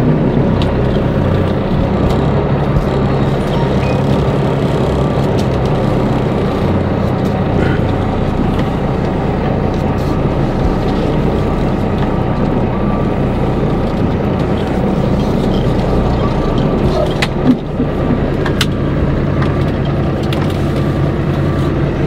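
Semi-truck's diesel engine running steadily at low revs, heard from inside the cab as the tractor backs up to couple the lowboy trailer's gooseneck. A short knock comes about three-quarters of the way through.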